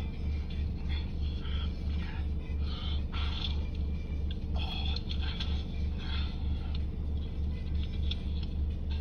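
Low, steady throbbing rumble of an idling car engine heard from inside the cabin, with patches of hiss coming and going.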